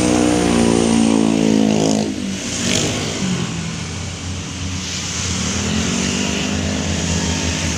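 A tourist bus's diesel engine passing close, loud at first and falling away about two seconds in. From about five seconds in a second engine rises as a small loaded pickup truck and motorcycles come by.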